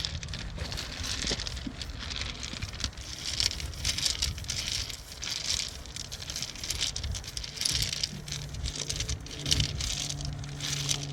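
Shovel digging into soil around boxwood shrubs, with branches rustling as they are dug up for transplanting, in irregular scrapes and rustles. A low steady hum comes in near the end.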